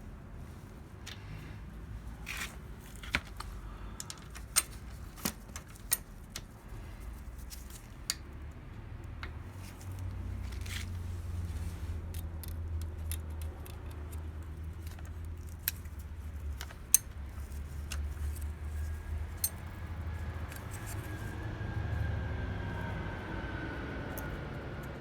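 Scattered sharp metallic clicks and clinks of hand tools working on a Honda Super Cub Pro 110 engine's valve adjusters while the valve clearance is set. A low rumble comes in about ten seconds in, and a faint falling whine runs under the last few seconds.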